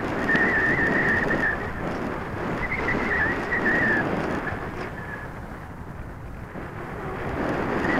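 Airflow rushing over the microphone of a camera riding on an RC glider in flight, swelling and easing, with a wavering high whine that comes and goes twice in the first half.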